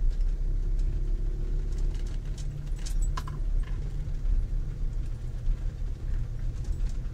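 Motorhome driving slowly on a rough dirt track, heard from inside the cab: a steady low engine and road rumble, with a few light clicks and rattles about three seconds in.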